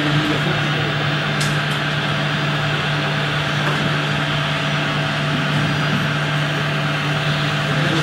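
Radio-controlled scale model construction machines (an excavator and tipper trucks) running: a steady low mechanical hum with an even hiss above it.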